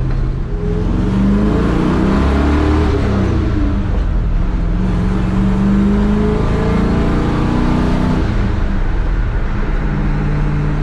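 A 1966 Chevy C10's small-block V8 heard from inside the cab while driving. It pulls up through the gears with its pitch rising twice, then holds a steady cruise.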